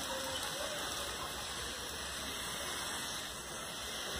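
Steady hiss of a hand sprayer misting liquid over potted orchid leaves.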